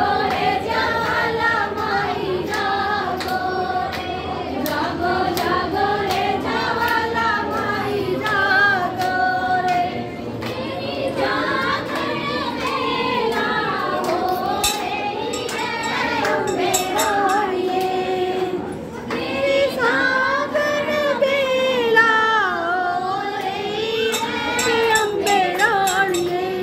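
Several voices, women's leading, singing a devotional song together, with sharp regular beats keeping time.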